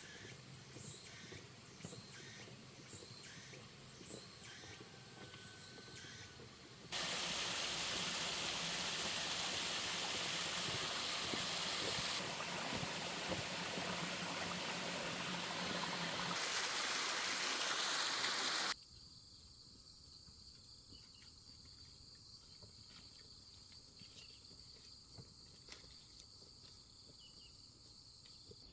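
Outdoor ambience in edited stretches. First come scattered light ticks and short high calls. A steady loud rushing noise then starts abruptly and runs for about twelve seconds. It cuts off suddenly into a faint, steady high-pitched drone.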